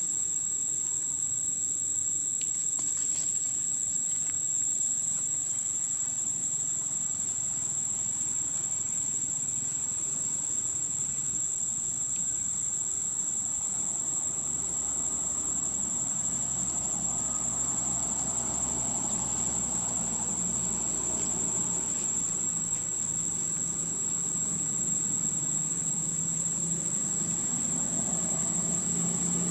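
Insects droning in a steady, high-pitched continuous tone, with a fainter low rustling noise that grows in the second half.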